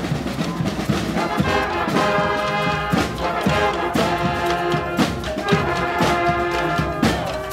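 Brass band playing live: trombones and trumpets holding notes over a steady drum beat.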